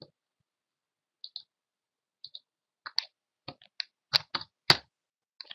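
Computer keyboard and mouse clicking: a few soft, scattered clicks at first, then a quicker run of louder clicks in the last two seconds.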